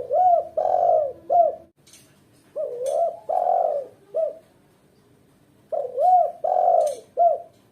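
Female spotted dove (tekukur) cooing: three phrases of about four low, arching coo notes each, a short note, two longer ones and a short one, with pauses between phrases. It is the female's call to males.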